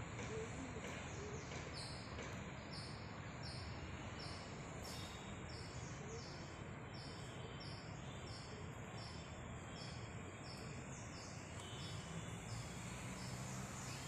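Faint outdoor ambience: steady background noise with a high, regular pulsing about two or three times a second and a few faint bird chirps.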